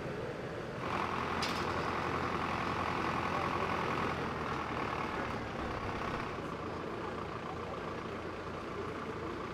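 Heavy vehicle engines idling, a steady low rumble. A higher steady drone joins about a second in and fades after about four seconds.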